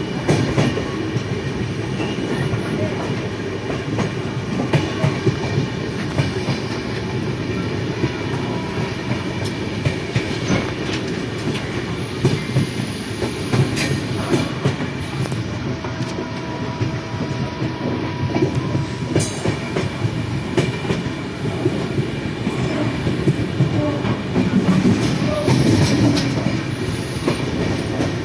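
Train running along the track, heard from on board: a steady rumble of wheels on rail with a continual clickety-clack of clicks from the rail joints.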